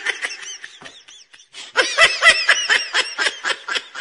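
High-pitched laughter in quick, rapid-fire pulses. It fades about a second in, then a louder second bout starts and trails off near the end.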